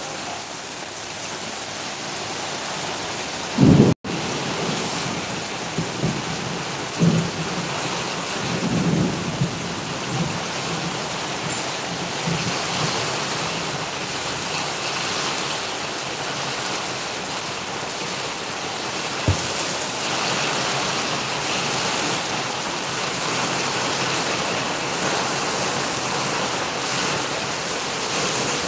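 Heavy rain pouring steadily onto wet paving, with a few short low rumbles in the first ten seconds, the loudest about four seconds in.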